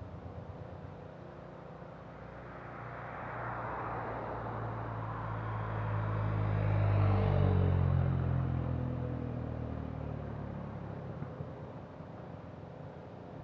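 A pickup truck passing on the road, its engine and tyre noise growing louder, loudest about halfway through, then fading away as the engine pitch drops.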